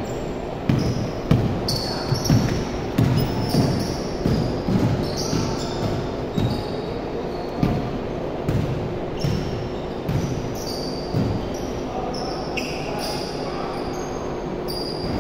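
Basketball being dribbled on a hardwood gym floor, a quick series of bounces that thins out after about eleven seconds, with sneakers squeaking on the court.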